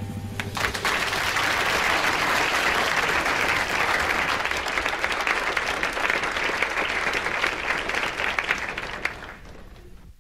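Audience applauding at the close of a live song performance. The clapping starts about half a second in, holds steady, then fades away near the end.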